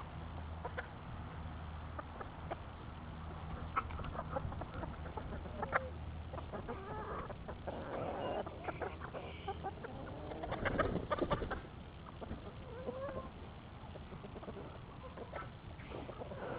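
A flock of hens clucking as they feed, with scattered short calls and small ticks. About two-thirds of the way through there is a louder burst of noise.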